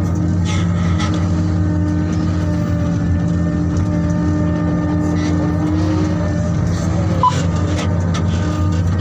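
The diesel engines of a Liebherr R9100 hydraulic mining excavator and an LGMG CMT106 mining dump truck run steadily at a constant pitch as the excavator loads the truck. A few faint knocks sit under the hum, and a brief high tone comes about seven seconds in.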